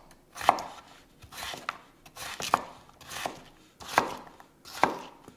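Chef's knife chopping raw potato into small cubes on a wooden cutting board: a steady series of strokes, about one every two-thirds of a second, each a brief cutting sound that ends in a sharp knock of the blade on the board.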